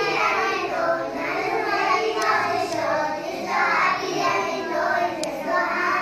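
A group of young schoolchildren singing a song together in unison.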